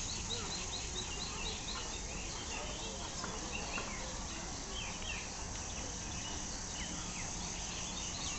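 Steady, high-pitched insect chorus with a fast pulsing, over which birds chirp, with a quick run of repeated chirps in the first two seconds. Faint voices murmur underneath.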